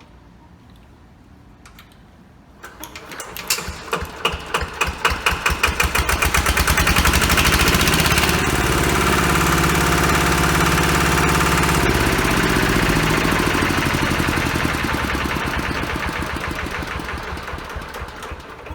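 A small motor-driven machine spinning up from slow, separate clicks to a fast, even rattling run, holding there for several seconds, then slowing and fading near the end.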